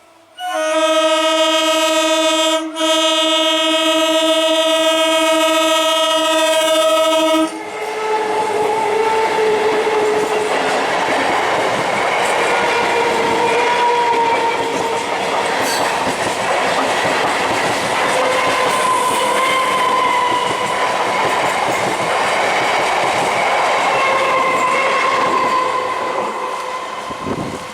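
An Indian electric train's horn is held for about seven seconds, one steady multi-tone blast with a brief break near the start. The train then runs past close by, a loud steady rush of wheels on rail with a faint wavering whine, fading slightly near the end.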